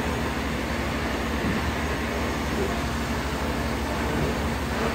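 Steady drone of industrial machinery, a constant rumble with a low hum that does not change.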